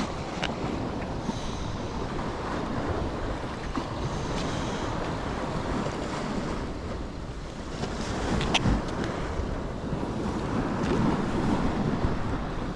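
Strong wind buffeting the microphone over waves washing against the shore, with a couple of sharp clicks.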